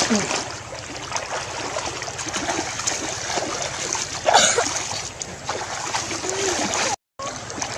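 River water splashing and sloshing around people wading waist-deep, with one louder splash about four and a half seconds in.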